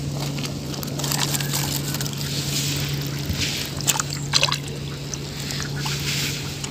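A splash as something drops into shallow muddy pond water about four seconds in, a few sharp slaps close together, over a steady low hum.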